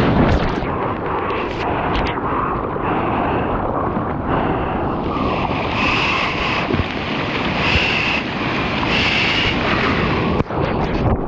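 A surfer paddling a surfboard through whitewater, with splashing from the arm strokes roughly every second and a half over the rush of the surf. Wind buffets the microphone.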